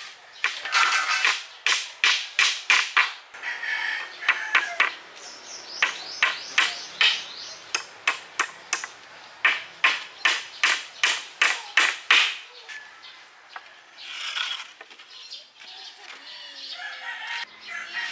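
Hammer driving nails into wooden slats: quick runs of sharp blows, about three a second, which stop about twelve seconds in.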